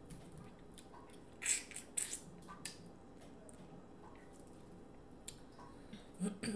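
Boiled crab shell being cracked and picked apart by hand, a scatter of sharp cracks and wet squishing sounds, the loudest about one and a half and two seconds in.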